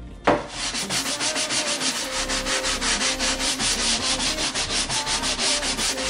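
A hand-held scrub sponge rubbed rapidly back and forth over the wooden floor of a sink cabinet, several scratchy strokes a second, after a sharp knock a moment in.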